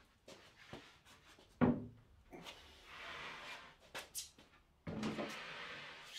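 A full sheet of plywood being handled and lifted: a few wooden knocks, a thump about a second and a half in, and the sheet scraping and rubbing against wood, with a longer scrape near the end.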